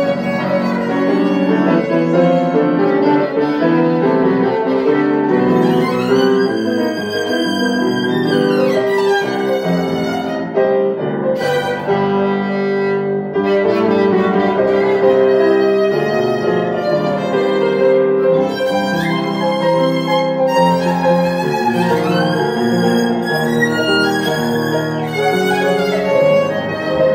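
Violin and grand piano playing a slow piece together: the violin bows long held melody notes with vibrato over the piano's accompaniment.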